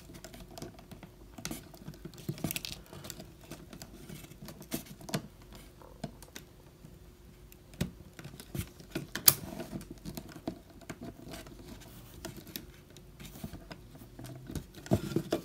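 Scattered small clicks and light scrapes of a plastic 1:12-scale action figure being posed by hand into a seated position, with one sharper click about nine seconds in.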